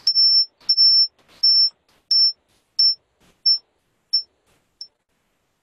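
High-pitched electronic beep tone repeating about every 0.7 s, eight times, each beep starting with a click and getting shorter and fainter until it dies out about five seconds in.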